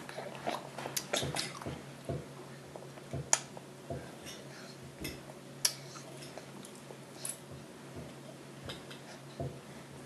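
A baby eating finger food: wet mouth smacks and chewing, with scattered light taps of small fingers on a glass baking dish. A faint low hum runs underneath.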